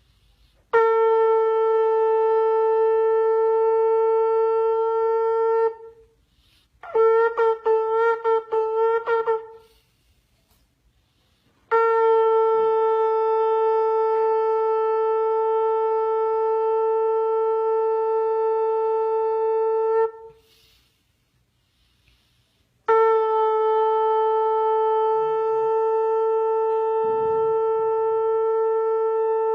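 Shofar (ram's horn) blowing: a long steady blast, then a quick series of short wavering notes, then two more long blasts on the same pitch.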